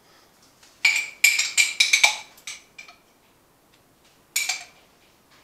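Metal teaspoon clinking and scraping against a glass jar of crushed garlic: a quick run of ringing clinks about a second in, then one more short clatter near the end.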